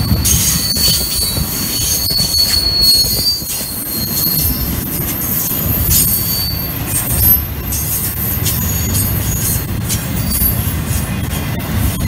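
Intermodal freight train of trailers on flatcars rolling past close by, with a steady low rumble of steel wheels on rail. Thin, high-pitched wheel squeal comes and goes, strongest in the first few seconds and again briefly around six seconds in.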